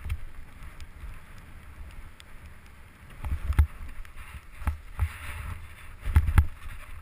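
Snowboard hissing through powder snow with a low wind rumble on the helmet camera's microphone, broken by several sharp knocks and thumps from about three seconds in, the loudest near the end.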